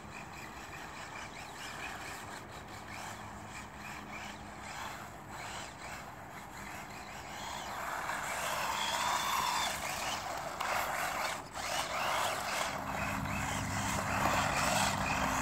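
WLtoys electric 4x4 RC buggy driving on damp asphalt: a whining electric motor and tyre hiss, growing louder about halfway through as the car comes close, with a brief break a little later.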